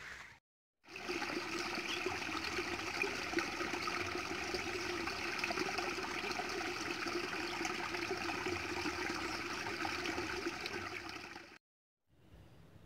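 Water running and trickling steadily into a small pool, starting just after a brief gap at the beginning and cutting off abruptly near the end.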